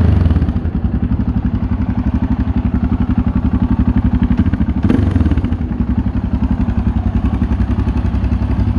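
2006 Yamaha MT-03's 660 cc single-cylinder engine idling through a Roadsitalia short titanium exhaust with its dB-killer and catalyst fitted: an even, loud beat of exhaust pulses, with one brief throttle blip about five seconds in.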